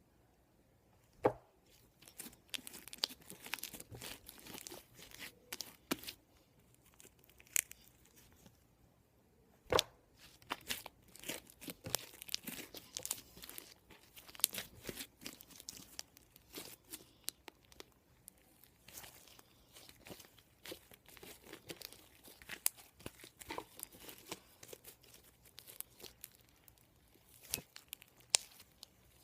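Hands squishing, stretching and poking homemade slime: a steady stream of sticky crackles, pops and tearing sounds, with sharper snaps about a second in, around ten seconds in and near the end.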